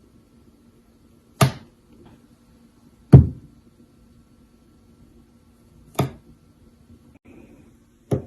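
Four sharp knocks, each with a brief ring after it, coming irregularly one to three seconds apart.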